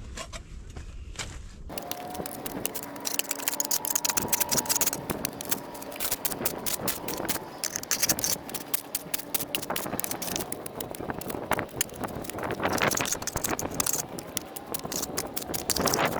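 Mud and debris being scraped off excavator tracks: a dense, irregular clatter of scraping and crackling that starts suddenly a couple of seconds in and keeps on unevenly.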